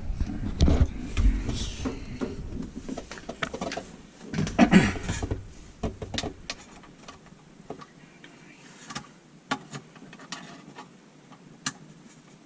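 Scattered clicks, knocks and rustling of hands working with tools and parts, with a low rumble during the first four seconds that then stops.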